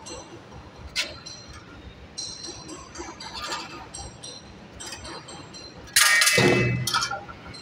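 Automatic bobbin winding machine running with light metallic clicks and clinks. About six seconds in comes a sudden loud clatter lasting about a second as the filled bobbin is released and drops out.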